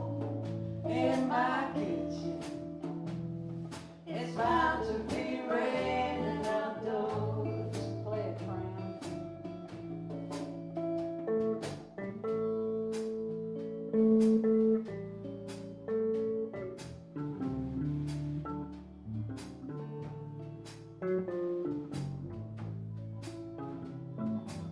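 Live blues band playing: a woman sings over electric bass, guitar and a steady beat for the first several seconds, then the band carries on instrumentally with a melodic lead line over the beat.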